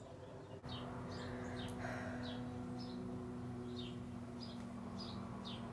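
A bird chirping over and over, short falling chirps about twice a second, over a steady low hum.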